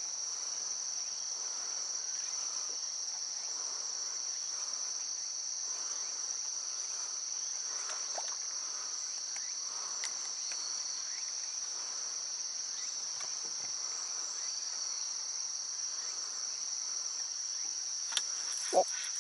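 Steady, high-pitched chorus of insects singing without a break. Near the end come two brief, sharp, louder sounds.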